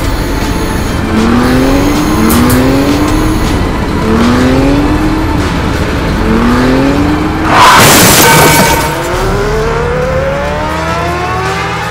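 Vehicle engine sound effects, the engine revving up and rising in pitch over and over in short pulls, then a loud burst of noise about eight seconds in, followed by one longer rising rev.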